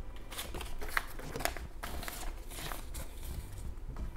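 Paper banknotes rustling and crinkling as they are handled, a quick irregular run of short, crisp rustles.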